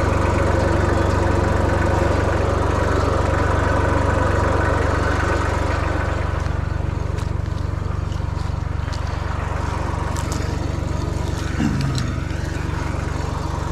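A vehicle engine idling steadily, with a brief falling sound near the end.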